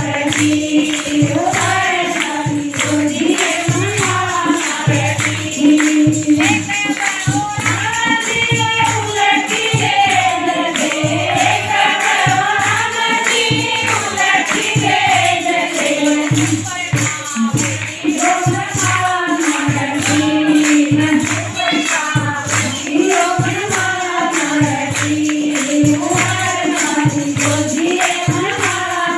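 Women singing a Haryanvi devotional bhajan, with jingling percussion and low drum beats keeping a steady rhythm.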